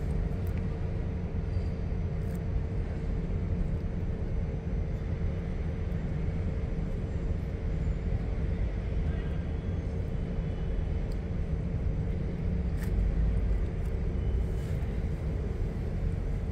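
Steady low outdoor rumble of street ambience, typical of traffic, with a faint steady hum running under it and a few faint clicks.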